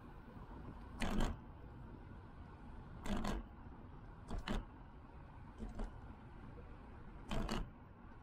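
Steady riding noise from an e-bike on a path, broken by five short clattering rattles a second or two apart, one of them doubled, as the bike and its mounted camera jolt over bumps.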